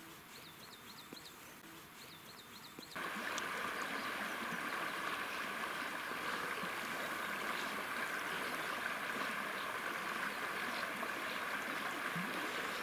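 Shallow river riffle flowing, a steady rush of running water that gets suddenly louder about three seconds in. Before that the water is faint, with a few short runs of high, repeated chirps.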